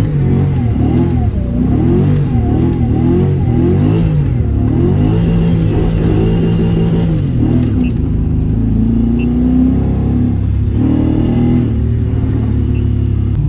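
Car engine revving up and down in quick repeated waves, then held at a fairly steady speed from about seven seconds in.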